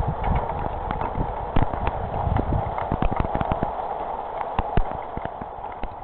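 Heavy rain with hail: a steady hiss of rain under many irregular sharp clicks of hailstones striking hard surfaces. The clicks come thick for the first three and a half seconds, then thin out.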